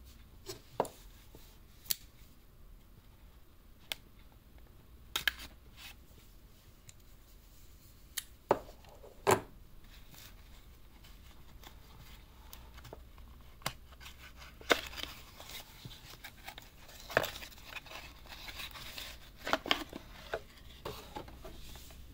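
Cardboard collector box being handled and opened by gloved hands: scattered sharp clicks, taps and short scrapes of cardboard flaps and sliding packaging, coming more thickly in the second half.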